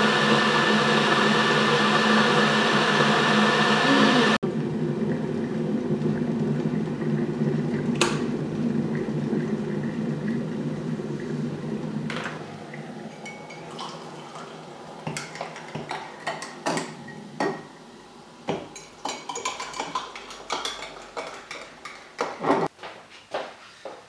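Electric kettle coming to the boil with a steady rushing rumble, cutting off suddenly about four seconds in; the boil dies away, then hot water is poured and a run of light clinks and knocks from ceramic mugs and a teaspoon follows near the end.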